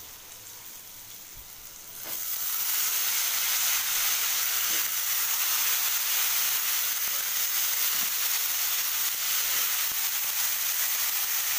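Chopped vegetables frying in hot oil in a kadai with fried chickpeas and coconut. A faint sizzle jumps to a loud, steady frying hiss about two seconds in, as the vegetables go into the oil.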